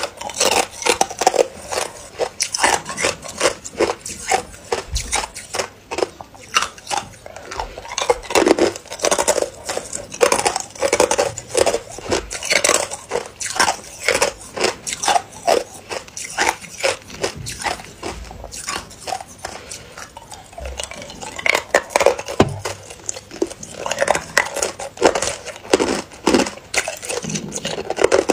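Hard ice being bitten and chewed: a dense, irregular run of sharp crunches and cracks, with ice pieces clinking as they are picked from a plastic tray.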